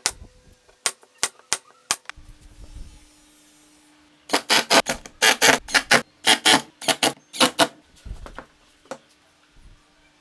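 Hand-tool work on wood: a few sharp separate clicks, then, about four seconds in, a quick run of about fifteen short scraping strokes in groups.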